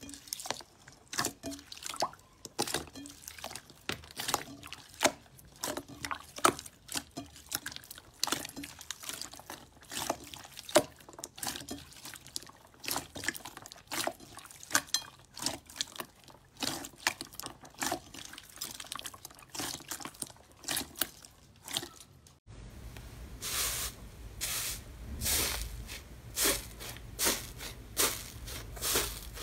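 Clear purple slime squished and kneaded by hand, a dense run of small wet clicks and pops. About three-quarters of the way through it cuts to fingers pressing into fluffy foam slime scattered with foam cubes: a regular series of soft crackling presses, about two a second, over a low hum.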